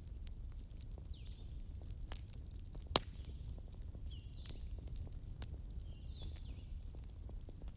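Wood fire crackling in a hearth: scattered small pops and one sharp, louder pop about three seconds in, over a steady low rumble of the fire. Short, high chirping calls recur every second or so throughout.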